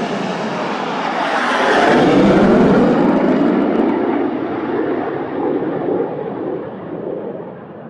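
Twin-engine Boeing 787 Dreamliner jet passing low overhead with its landing gear down. The engine noise swells to its loudest about two seconds in, with sweeping, shifting tones as it goes over, then fades away as the aircraft recedes.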